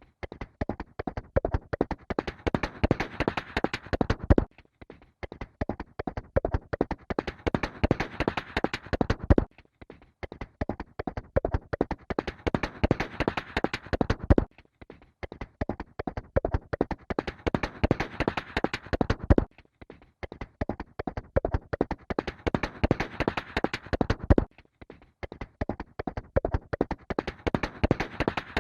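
Horse galloping: rapid hoofbeats. It is a short recording looped about every five seconds, each pass growing louder and then cutting off abruptly.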